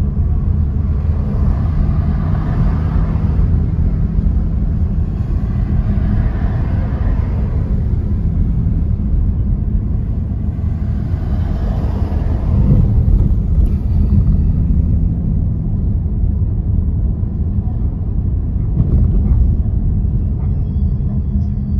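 Steady low rumble of a car's engine and tyres on the road, heard from inside the moving car's cabin, with a few swells of road noise.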